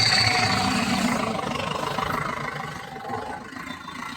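A motor vehicle passing close by, loudest at the start and fading away over the next few seconds.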